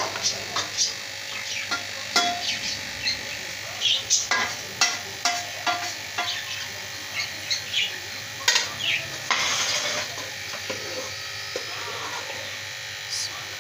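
A metal spoon clinking and scraping against steel and aluminium pans as boiled rice is scooped and spread into a pot, with a longer scrape about nine seconds in. A steady hum runs underneath.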